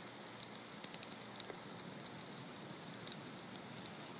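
Heavy rain pouring down steadily, an even hiss with scattered ticks of individual drops.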